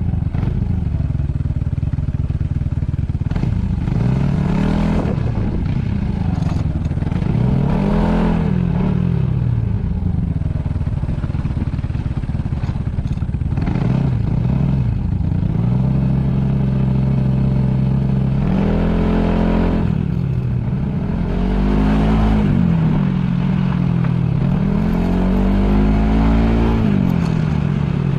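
Yamaha Majesty S scooter's single-cylinder engine running on the move, its note rising and falling again and again as it accelerates and eases off through a run of corners, over a low rumble of wind on the microphone.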